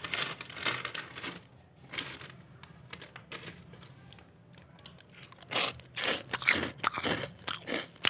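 Foil snack packet crinkling as it is handled open, then crunching as puffed corn snack sticks are bitten and chewed, a run of crunches in the last few seconds.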